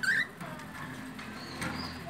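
A budgerigar gives one short, sharp call at the start, followed by a few faint high chirps from other budgerigars.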